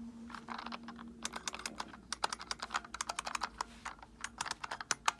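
Buckling-spring keys of an electronic typewriter's keyboard being typed in quick runs, each stroke a sharp click. A low steady hum sounds under the first second and a half.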